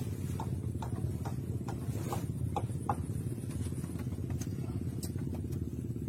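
Boat engine running steadily, a low pulsing rumble, with scattered short light ticks over it, most in the first three seconds.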